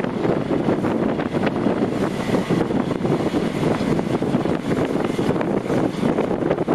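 Wind rushing over the camera microphone on an open ship deck, a continuous buffeting noise that swells and dips in quick gusts.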